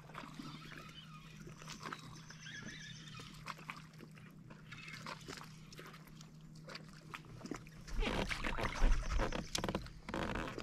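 Fishing reel being cranked as a small bass is played on a bent rod, a faint fine ticking over a steady low hum. From about eight seconds in come louder knocks and handling noise as the fish is lifted aboard.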